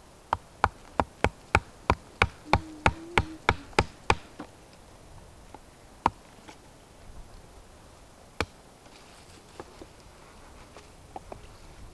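A knife is batoned into a branch: a wooden baton knocks on the back of the blade about three times a second, a dozen sharp strikes, followed by two single knocks a few seconds apart.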